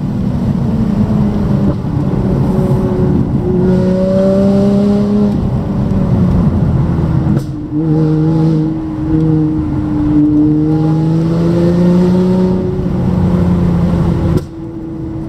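Lotus Evora's 3.5-litre V6 through a Carpristo aftermarket exhaust, heard from inside the cabin as the car is driven hard on a twisty road. The engine note climbs in pitch under acceleration and drops back several times as the driver shifts or lifts, and cuts back sharply near the end when the throttle is closed.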